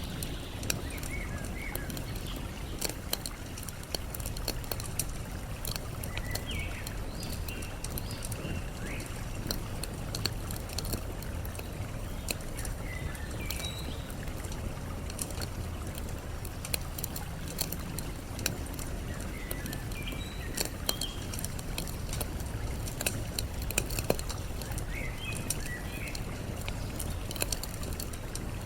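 Wood campfire crackling, with frequent sharp pops and snaps, over a steady wash of water. Short bird chirps come in every few seconds.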